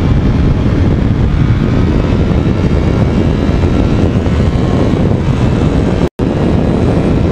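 Sport motorcycle ridden at speed, heard through a bike-mounted camera: heavy wind buffeting on the microphone over the engine and road noise. The sound cuts out for an instant about six seconds in.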